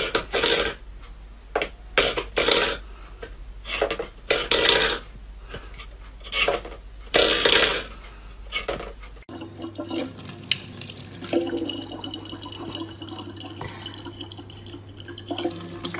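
A small stainless-steel bowl knocking and clanking on a wooden floor as a cat paws at it, in a run of separate knocks about one or two a second. About nine seconds in, this gives way to a kitchen tap running steadily, with a low hum under it.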